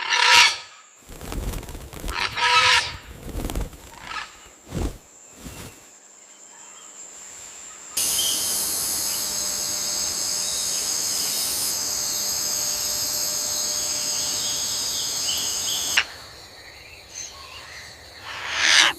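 Outdoor nature sounds: a few sharp, irregular animal calls and noises during the first six seconds, then a steady, high-pitched insect drone that starts suddenly about eight seconds in and cuts off suddenly about eight seconds later.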